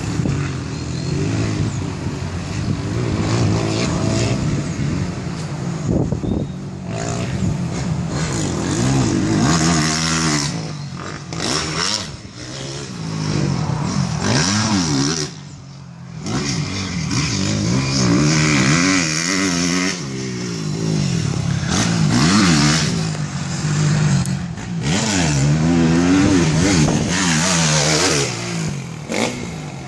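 Honda CRF250R motocross bike's four-stroke single-cylinder engine being ridden hard, revving up and down over and over as the throttle is opened and shut, easing off briefly about halfway through.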